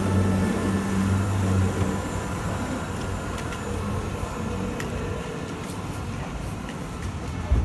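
A Zurich Tram 2000 passing close by and pulling away: a low electric hum for about two seconds that then fades into a steady hiss of street and rolling noise. A short thump near the end.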